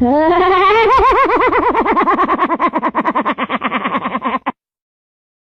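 A long, loud, wavering laugh, one voice pulsing about eight times a second and rising in pitch at first, which cuts off suddenly about four and a half seconds in.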